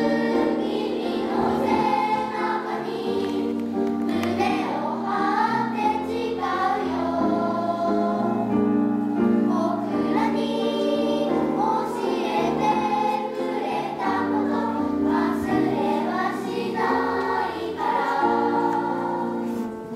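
Children's choir singing a choral song in several voices, with sustained held notes.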